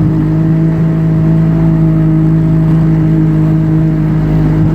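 Boat motor running steadily at a constant speed, a loud, even hum that holds one pitch throughout.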